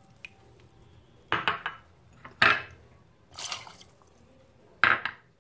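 Glass bowls clinking against a stainless-steel mixer-grinder jar as soaked almonds and their soaking water are tipped in: several separate sharp clinks with a little pouring liquid.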